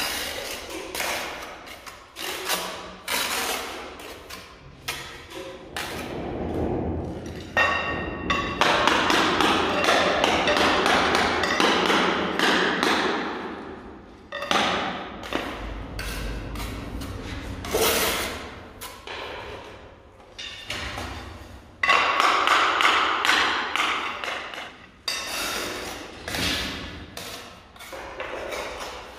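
A steel trowel scraping and spreading tile mortar, with repeated knocks and thuds as ceramic skirting tiles are set and tapped into place against the wall.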